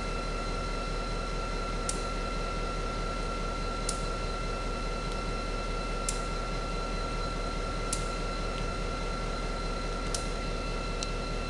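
CSX diesel-electric switching locomotive and slug moving slowly, with a steady engine drone and a steady whine. A short sharp click comes about every two seconds.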